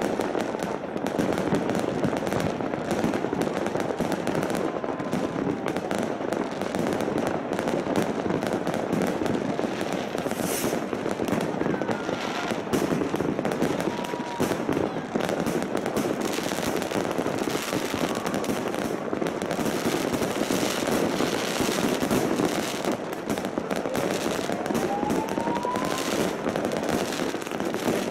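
Fireworks display: a dense, unbroken barrage of bangs and crackling shells, with a rising whistle from a whistling firework about three-quarters of the way through.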